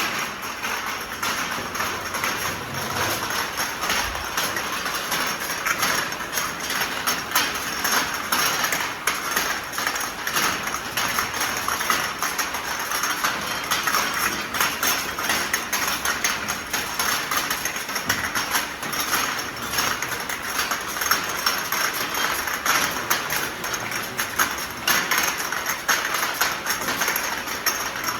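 Ultrasonic vial washing machine running with glass vials clinking and rattling against each other and the machine parts: a dense, continuous clatter of small glassy knocks.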